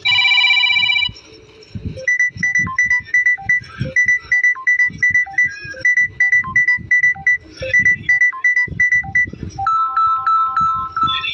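Samsung Galaxy A13 5G phone playing its ringtone: a buzzy tone about a second long, then a quick repeating melody of short high notes over a steady beat, moving to lower notes near the end.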